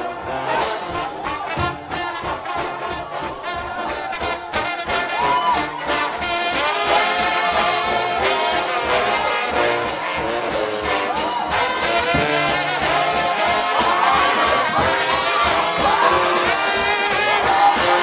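Trombone shout band playing a gospel tune, with gliding brass lines over a steady drum beat.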